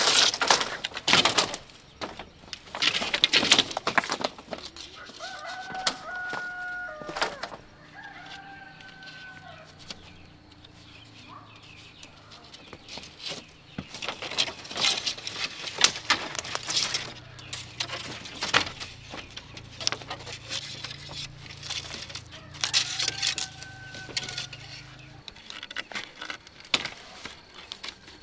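Chickens on a farm, with a rooster crowing three times, each crow a held call of about a second and a half. Through it run many sharp clicks and knocks, densest and loudest in the first few seconds.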